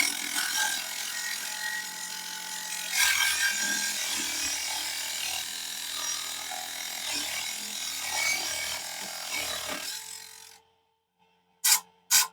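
Mini table saw cutting through a small aluminum channel, an uneven, continuous cut that stops about ten seconds in. Two short sharp bursts follow near the end.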